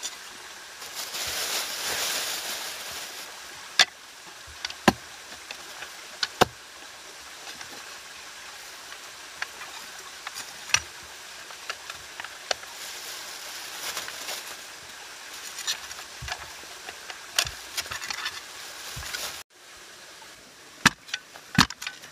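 Small folding shovel chopping and scraping into wet clay soil, with sharp strikes every second or few and a longer spell of scraping near the start.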